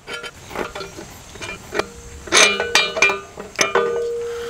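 Steel tools clinking and knocking against a bare Dana 60 axle housing as a wrench and a threaded seal-installer tool are handled, several clinks in a row; the last one, a little before the end, leaves a ringing tone that slowly dies away.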